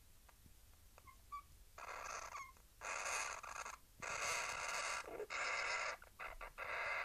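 Pet hamster making weird raspy, buzzing noises in a run of bursts, each about a second long with short gaps, after a couple of faint high squeaks near the start.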